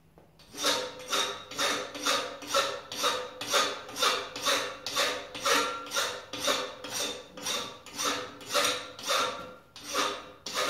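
Hand file rasping across a forged boarding-pike head clamped in a vise, in steady back-and-forth strokes about two a second, with a faint metallic ring from the workpiece.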